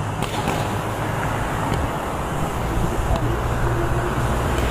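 Steady low rumble of vehicle engine and road traffic noise, with a continuous low hum and a few faint clicks.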